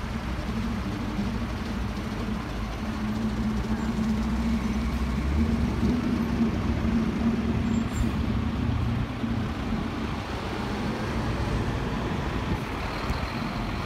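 Diesel engines of heavy fire trucks running as they roll slowly past in a line, a steady low engine drone that grows louder through the middle as the trucks come close.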